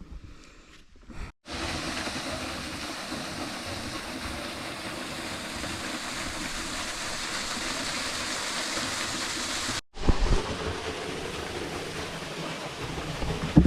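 Steady rushing of a waterfall, starting abruptly after a second of quiet. Near the end it cuts to rougher rushing with low thumps of wind on the microphone.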